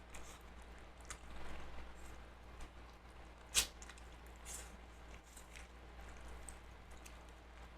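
Close-up eating sounds: wet chewing with scattered small clicks, and one sharper click about three and a half seconds in.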